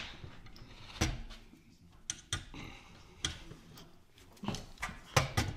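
Light, irregular clicks and taps of small rivets and aluminium parts being handled and pushed into holes in an aluminium gusset plate on a workbench, about eight in all.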